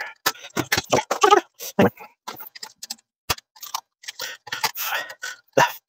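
Unpacking metal bed-frame rails with a box cutter: irregular cutting, rustling and scraping of packaging with scattered clicks, and one sharp click about three seconds in.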